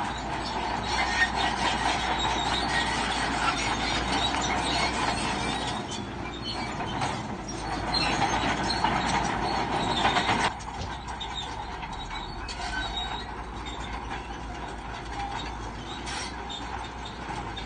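Crawler bulldozer working: its steel tracks clank and squeal over the diesel engine. The noise drops suddenly to a quieter level about ten seconds in.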